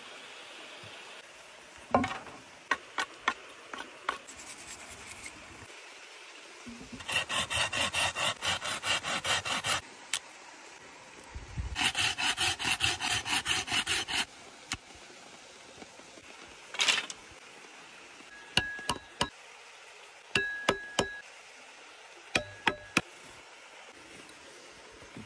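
A knife blade scraping and shaving the bark of a green wooden stick in rapid, even strokes, about four a second, in two runs of a few seconds each. Scattered sharp clicks and taps of wood being handled come before and after the runs.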